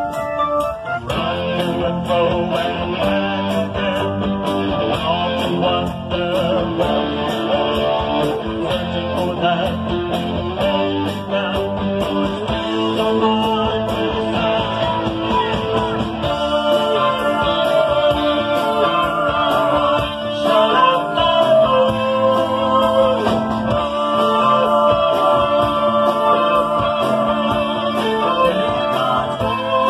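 A live rock band playing through amplifiers and PA: electric guitars, drums with a steady cymbal beat, and a lead vocal singing over them.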